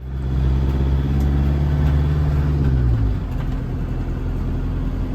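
Vehicle engine running under load, heard as a strong low hum, with its note easing down and quietening about three seconds in, leaving steady road noise.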